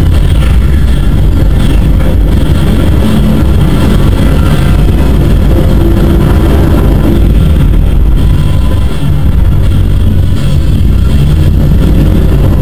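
Action-film soundtrack playing loudly through a home projector setup's speakers: a dense, steady low rumble of effects with music underneath.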